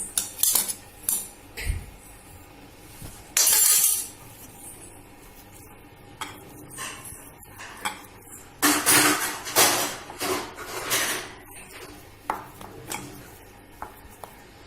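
Kitchen clatter of a pan and utensils: scattered knocks and clinks, with a short louder scrape about three and a half seconds in and a run of scraping from about nine to eleven seconds, as the cooked rice-flour dough is worked.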